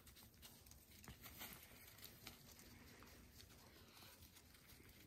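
Near silence, with faint, scattered rustles and ticks from a pug and a shiba inu moving and sniffing through snow-covered brush.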